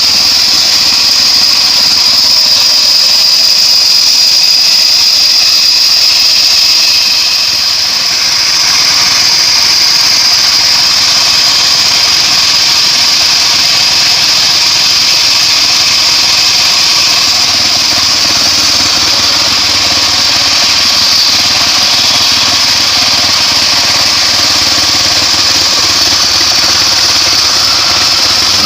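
Homemade engine-driven bandsaw sawmill running steadily while sawing acacia wood: loud continuous engine and blade noise with a high steady whine, dipping briefly about eight seconds in.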